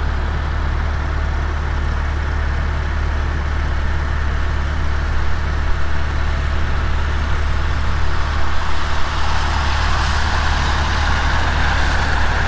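Heavy diesel engine running steadily with a strong low hum. About nine seconds in, a higher hiss builds and grows louder.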